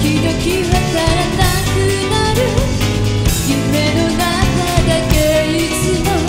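A woman singing a Japanese pop ballad live into a handheld microphone, backed by a band with drums.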